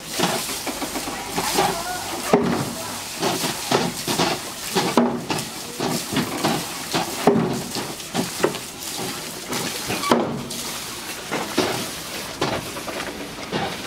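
Water pouring and splashing over a turning wooden water wheel of a traditional Korean water mill, a steady rush broken by sharp knocks about once a second.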